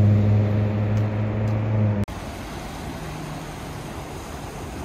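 An engine idling with a steady low hum that cuts off abruptly about two seconds in. After it comes the even rush of river rapids.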